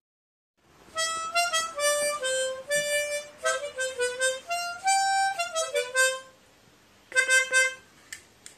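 Harmonica playing a short tune of single held notes stepping up and down for about five seconds, then a brief burst of a few notes near the end.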